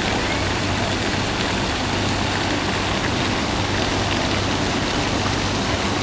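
Steady rush of water spilling over a low weir into a pond, an even, unbroken wash of sound with a low hum beneath it.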